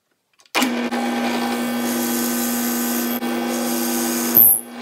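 Drill press motor running steadily with a twist bit boring a hole through clamped plywood, starting about half a second in. A brief high squeal comes near the end.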